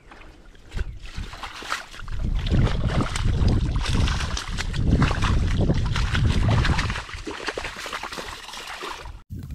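A northern pike thrashing and splashing in shallow water as it is released from a landing net. The splashing is loudest in the middle and tapers off near the end.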